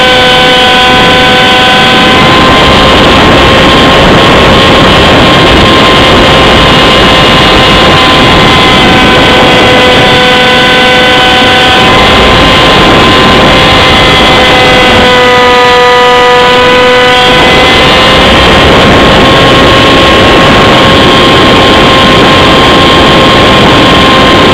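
Onboard sound from an AXN model airplane in flight: the steady whine of its electric motor and propeller over loud wind rush on the camera. The pitch sags slightly for a couple of seconds about two-thirds of the way in, then returns.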